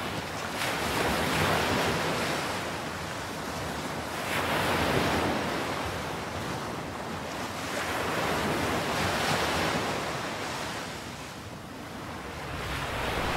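Waves washing onto a shore, swelling and falling about every four seconds, three times, with wind blowing across the microphone.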